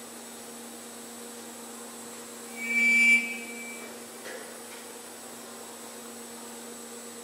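CNC wood lathe with a GMN high-speed milling spindle running, with a steady hum and a thin high whine. About two and a half seconds in, the small cutter bites into the wooden workpiece for under a second, giving a loud, high-pitched cutting whine as it carves a groove.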